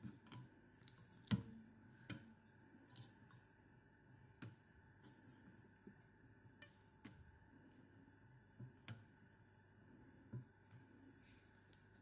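Near silence with faint, scattered clicks and light taps from hands working at a fly-tying vise, winding a strip of virtual nymph skin over a hook.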